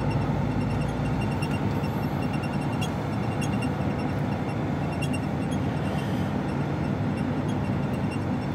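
Steady drone of an HGV truck's diesel engine and tyre and road noise, heard from inside the cab while cruising along a dual carriageway. The deepest rumble drops away about a second in.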